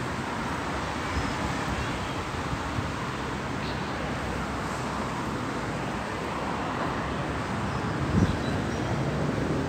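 Steady outdoor background noise, heaviest low down, with a single low thump about eight seconds in.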